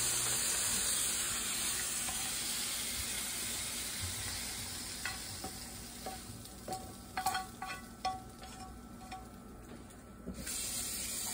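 Meat-and-vegetable stir-fry sizzling in a frying pan on an induction hob, the sizzle fading steadily as the pan comes off the heat. A few light clinks and knocks follow, and a short rush of hiss comes near the end.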